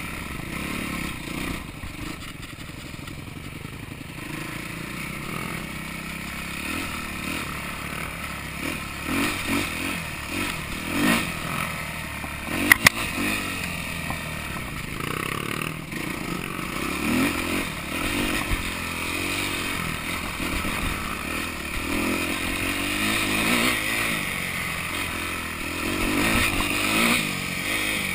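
Yamaha YZ250F's four-stroke single-cylinder engine revving up and down again and again while ridden over a rough trail, with clatter from the bike. Two sharp knocks come about halfway through.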